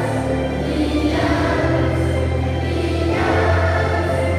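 A group of students singing the school hymn together through face masks, over accompaniment with held low notes that change about every two seconds.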